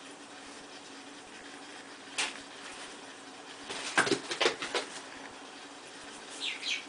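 Kittens moving about: soft rustles and knocks, once about two seconds in and in a quick cluster around four seconds, and a faint high kitten mew near the end.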